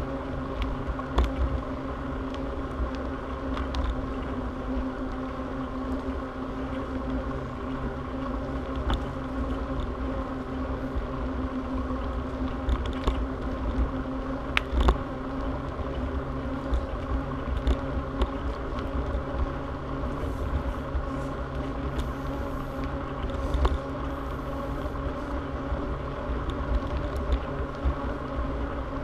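Bicycle rolling along a paved trail at a steady pace: a constant whir with a hum at one fixed pitch from the tyres and drivetrain, wind rumbling on the microphone, and a few small clicks.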